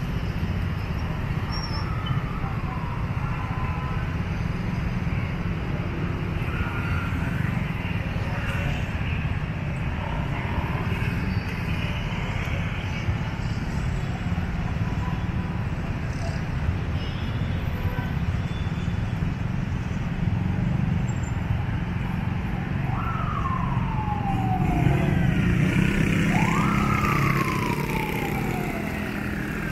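Steady rumble of city street traffic, and in the last several seconds an emergency vehicle's siren wailing: each wail rises quickly and falls slowly, repeating about every three and a half seconds as it grows louder.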